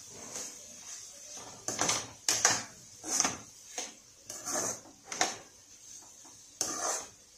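A spoon stirring salted, chopped banana stem in a pan: a run of short scraping strokes at an uneven pace.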